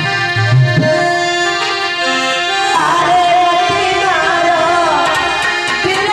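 Live devotional bhajan music: a harmonium holding steady notes with a few tabla strokes, then a voice singing a wavering melody from about three seconds in.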